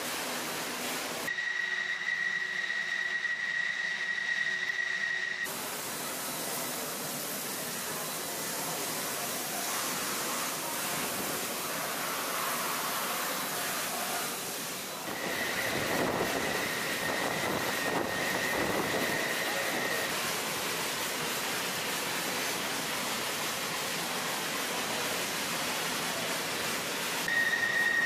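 Water spray hissing steadily from a robotic wash arm's nozzle as it jets water over an aircraft's skin. A steady high whine joins it three times: early, in the middle, and near the end.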